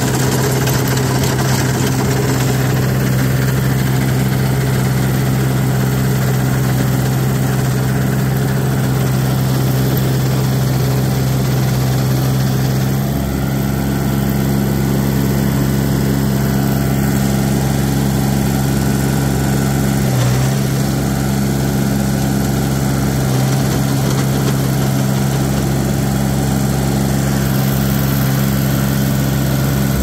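Compact tractor engine running steadily under load while pulling a rototiller through brush, a loud even hum with a heavier low rumble setting in about halfway through.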